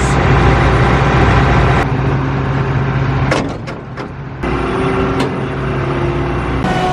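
Heavy farm machine engine running steadily, heard in several short cuts, with a few brief knocks.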